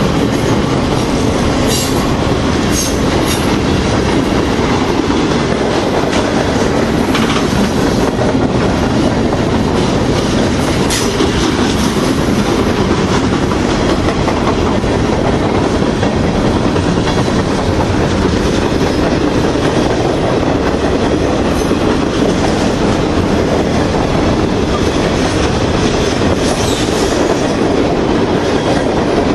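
Long mixed freight train rolling past close by, steel wheels running over the rails in a steady loud rumble. A few brief sharp high sounds cut through it from time to time.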